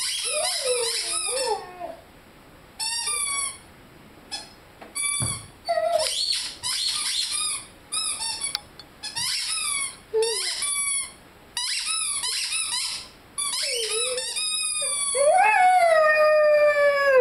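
Rubber squeaky chicken toy squeaking again and again as a Rhodesian Ridgeback puppy chews it, with the puppy howling along. A long, slowly falling howl comes near the end.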